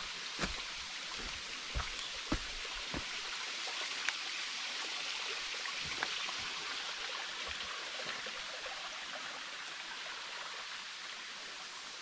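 A creek running with a steady rushing sound that swells slightly toward the middle and eases near the end. A few sharp taps and thumps stand out, mostly in the first half.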